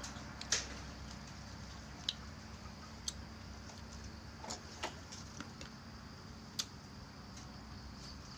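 Eating sounds: a metal spoon clicking against a bowl, and chewing. A handful of sharp, separate clicks come through, the loudest about half a second in, over a faint steady hum.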